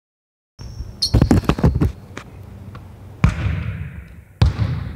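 Basketball bouncing on a gym floor: a quick run of bounces about a second in, then single heavy bounces more than a second apart, each echoing in the large hall.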